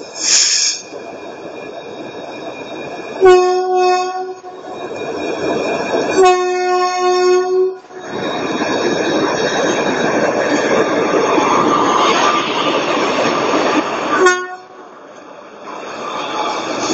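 Indian Railways WAP-4 electric locomotive sounding its air horn in two blasts of about a second each as it pulls out. It then rumbles loudly past at close range and gives a short toot, before the coaches roll by more quietly. A brief high squeal is heard at the very start.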